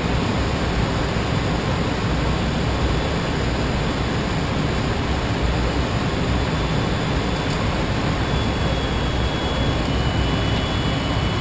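Steady rushing noise of airflow and jet engines heard inside a private jet's cockpit on short final approach to landing.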